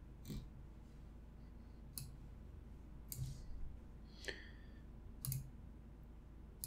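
Computer mouse clicking, about six separate clicks spaced irregularly a second or so apart.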